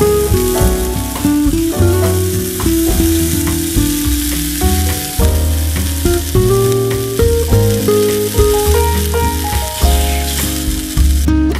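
Small pieces of marinated beef sizzling and frying in hot oil in a tiny steel pan, a steady hiss that cuts off near the end. Plucked-string background music plays throughout.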